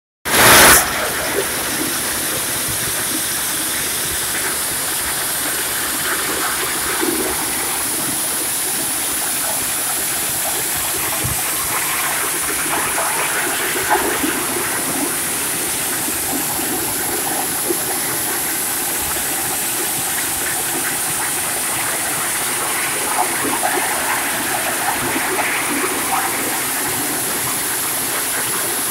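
Tractor-driven maize thresher running steadily with a constant rushing, hissing noise as cobs are fed through it. There is a short loud burst about half a second in.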